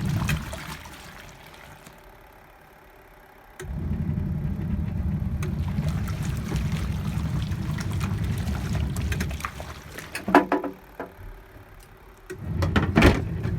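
Hisense twin-tub washing machine's wash motor running with a low hum as it churns the water and clothes, dying away, then starting up again suddenly after about three and a half seconds. The pattern of running, stopping and restarting is typical of the wash pulsator reversing direction. A few short clicks and knocks come near the end.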